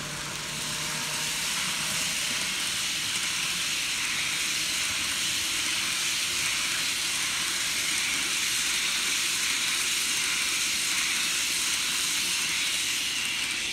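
N-gauge model freight train, an electric locomotive and a long rake of container wagons, running past close by: a steady rolling hiss of small wheels on the track, swelling slightly in the first two seconds and then holding even.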